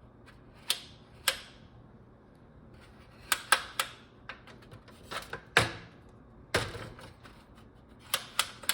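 Sharp clicks, some single and some in quick runs of two or three, from the switch of an old three-speed Lasko box fan being worked through its settings while the motor stays silent: the fan is getting no power through a bad extension-cord connection.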